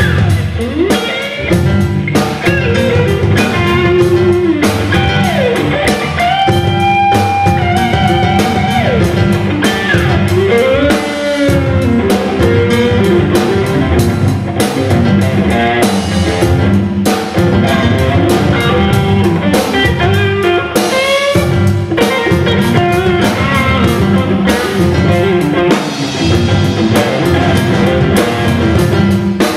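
Live blues-rock band: a lead electric guitar on a Fender Telecaster plays a solo full of string bends over drum kit and bass guitar.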